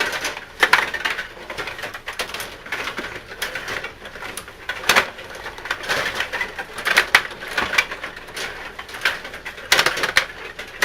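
Rod hockey table in play: irregular clacking and rattling of the player rods, figures and puck against the table and boards.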